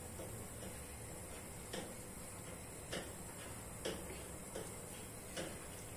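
Soft, irregular clicks, about five roughly a second apart, as oiled hands pinch and roll a sticky mashed potato and melted cheese mixture from a glass bowl into small balls, over a faint steady hiss.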